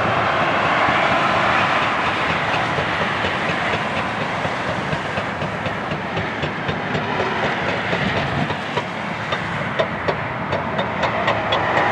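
A backhoe working broken rock: a steady machine noise with sharp, rattling clacks that come more and more often in the second half.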